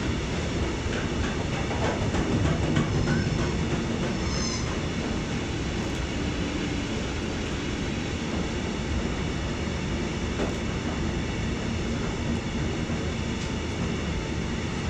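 Freight train of covered hopper wagons rolling steadily past, with a continuous rumble of wheels on rail. A brief faint high squeal comes about four seconds in.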